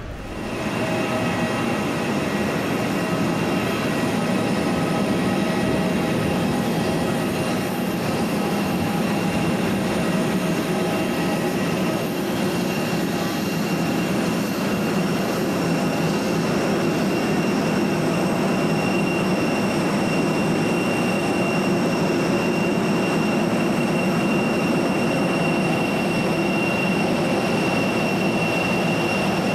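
Steady aircraft turbine noise on the apron: a loud rumble with a constant high whine held over it.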